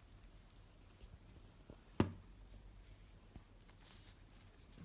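Faint handling of trading cards, soft slides and small clicks as cards are moved, with one sharp tap about two seconds in.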